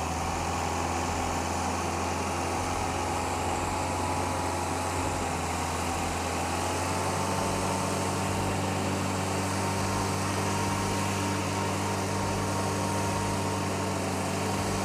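Jeep engine running steadily under load as the vehicle tries to drive out of deep sand, stuck, while being pushed. Its note changes about halfway through.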